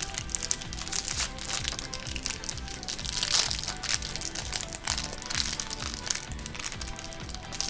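Plastic toy packaging crinkling and crackling in irregular bursts as it is handled and opened, over background music.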